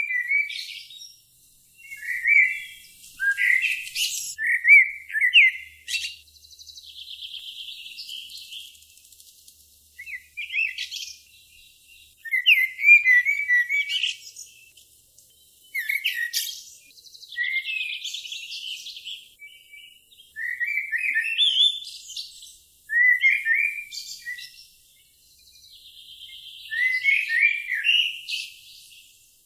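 A songbird singing: phrases of quick high chirps, a couple of seconds each, with short pauses between them and a softer buzzy trill between some phrases.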